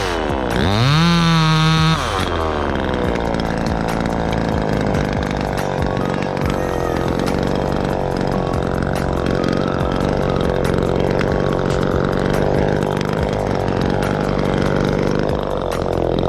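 Chainsaw running at high revs. In the first two seconds it eases off and revs back up, then settles into a steady, rougher run at lower pitch, like a saw working under load in a cut.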